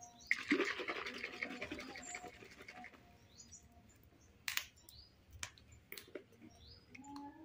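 Baby macaque's short, high squeaky chirps, with a harsh crackling burst in the first two seconds and a few sharp clicks in the second half.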